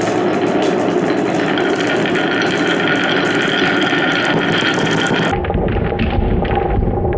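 Glass marbles rolling and clattering down a wavy marble run track: a dense, continuous rattle of quick clicks over a rolling rumble. About five seconds in, the sound turns duller and deeper.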